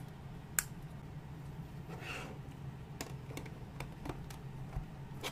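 Plastic Lego-compatible building bricks clicking as they are pressed and snapped together by hand: one sharp click about half a second in, a brief plastic rustle around two seconds in, then several lighter clicks. A steady low hum runs underneath.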